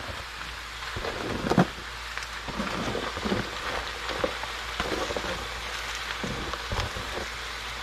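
Vegetables sizzling steadily in a hot stir-fry pan on medium-high heat, with scattered clicks and knocks as the remaining ingredients are added.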